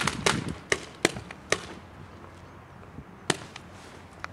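Paintball markers firing: a quick run of sharp pops in the first second and a half, then a single pop a little after three seconds.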